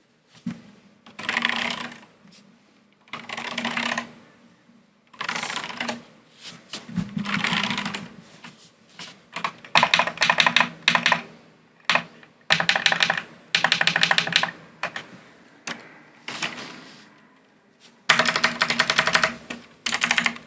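Logitech G Pro X mechanical keyboard being typed on in bursts of a second or two with short pauses between them; the later bursts are rapid runs of sharp keystrokes.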